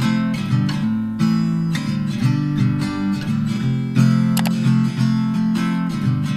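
Background music: acoustic guitar strumming chords at a steady pace.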